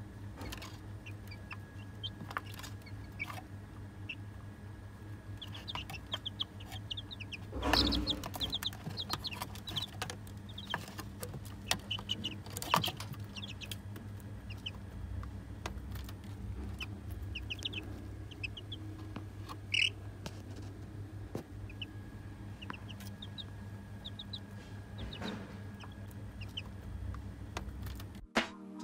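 Half-grown chicks peeping and clucking softly in short bursts while pecking at food in a plastic feeder, with scattered sharp pecking taps. A louder thump comes about eight seconds in, and a steady low hum runs underneath.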